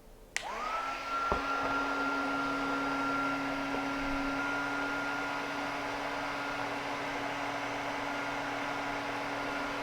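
Wagner HT400 electric heat gun switched on, its fan motor spinning up to a steady whine over a rushing hiss of hot air, shrinking a self-solder heat-shrink butt connector; a sharp click comes about a second after it starts.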